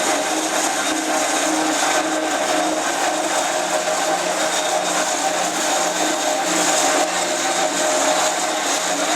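Concrete grinder running steadily while grinding a concrete surface: a continuous motor whine with a steady hum over a harsh grinding hiss.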